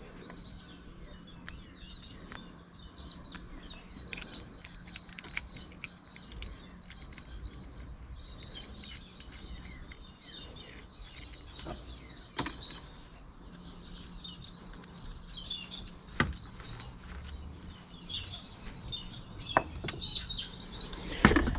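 Birds chirping in the background throughout, with scattered sharp clicks and taps from small metal aerial parts, a washer and nut, being handled; the loudest clicks come about halfway through and again about three quarters through.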